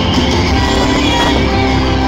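Live street-band music with a keytar, holding sustained notes over a steady bass.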